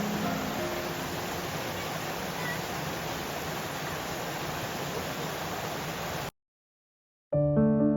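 Rushing water of a mountain valley stream running high after heavy rain, a steady rush. It cuts off suddenly about six seconds in, and music starts about a second later.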